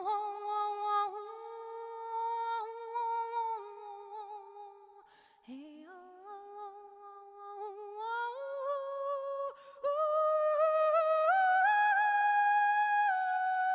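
A solo voice singing a slow, wordless melody with long held notes and small ornamental turns, with no instruments. It climbs higher and gets louder around eight to ten seconds in.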